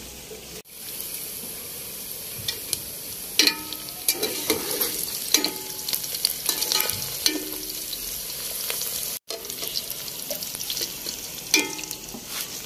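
A slotted steel spatula stirring onions and meat in an aluminium cooking pot, clinking against the pot with a short ringing note about once a second, over a steady hiss.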